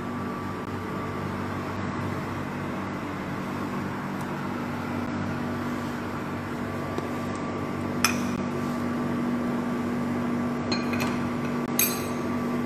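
Steady mechanical hum with a constant low tone in a kitchen, with a few light clinks of kitchenware against a pot, one about 8 seconds in and a couple near the end.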